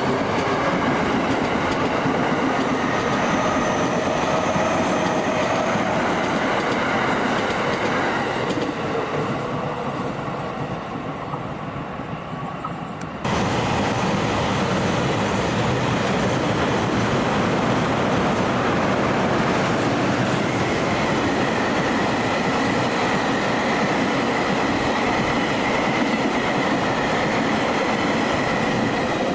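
Utsunomiya Line train running through the station: a loud, steady rumble of steel wheels on the rails with a clickety-clack over the rail joints and a faint high wheel squeal. The sound softens and dulls a few seconds before the middle, then jumps back up suddenly about halfway through.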